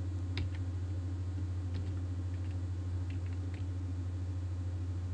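A few scattered computer-keyboard keystrokes, single isolated clicks a second or so apart, over a steady low hum.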